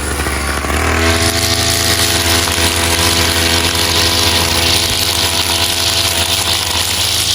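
Two-stroke brush cutter engine with a 45 mm bore and Walbro carburettor, revving up about a second in and held at high speed, then easing off right at the end.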